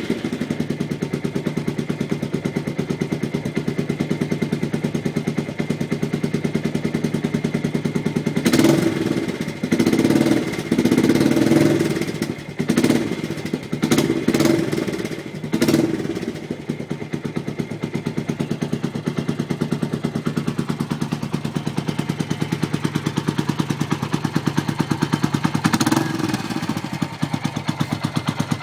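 Suzuki Intruder 250's V-twin engine and exhaust running without the asbestos exhaust gasket: it idles with a steady pulsing beat, is revved in a string of short blips through the middle, and blipped once more near the end.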